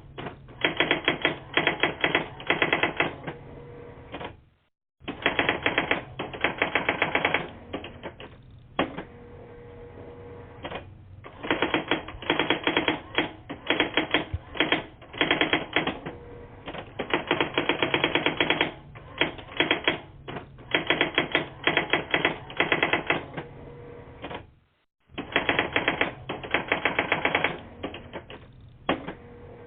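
Rapid, typewriter-like clacking heard over a phone line on a voicemail. It comes in quick runs of keystrokes, each a second or a few long, with short pauses between them. The line goes dead twice for a moment.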